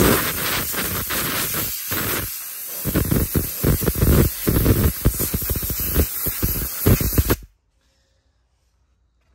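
Compressed-air blow gun blasting sawdust off a conveyor chain. The loud air hiss comes in a run of uneven bursts as the trigger is worked, then cuts off sharply about seven and a half seconds in.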